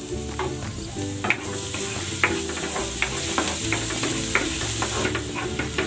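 Minced garlic sizzling in hot cooking oil in a nonstick frying pan while a spatula stirs it, its edge scraping and tapping the pan in quick, irregular ticks over a steady hiss.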